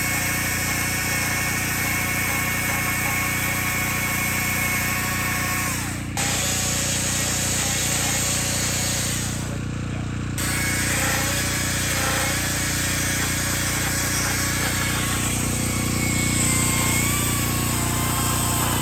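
A chainsaw running steadily while carving wood, easing off briefly twice, about six and ten seconds in.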